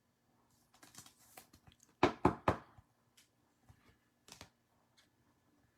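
A scatter of soft clicks and knocks from hands handling things on a table, with three louder knocks close together about two seconds in.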